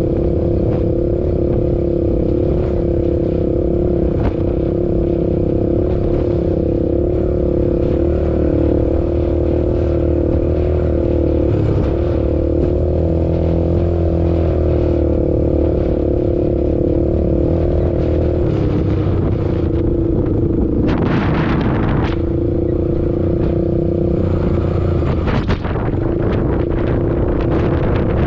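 ATV engine running steadily at speed, a constant pitched drone that dips slightly in pitch about two-thirds of the way through. Two short rushing noise bursts cut in near the end.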